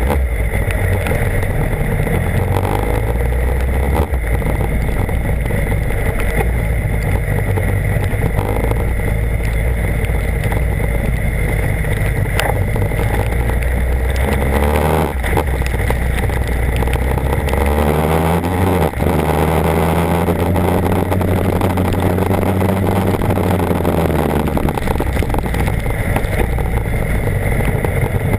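BMW HP4 superbike's inline-four engine running under way, its pitch stepping and gliding up and down with throttle and gear changes, including a long swell and fall in revs past the middle, over steady wind rush.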